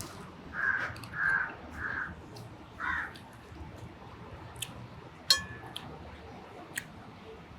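A crow cawing four times in quick succession, followed about two seconds later by a single sharp clink.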